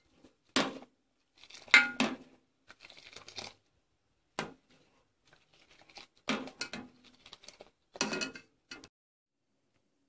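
Metal ladle knocking and scraping against a pot as it stirs and aerates heating milk, in irregular bursts of clinks and scrapes with short pauses between.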